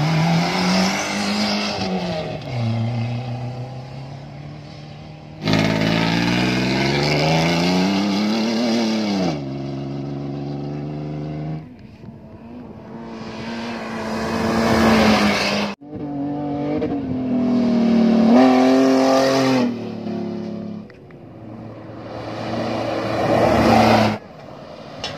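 Off-road rally 4x4 engines revving hard as the vehicles accelerate along a dirt track, the pitch climbing and dropping with each gear change. The sound comes in several short passes that start and stop abruptly at edits.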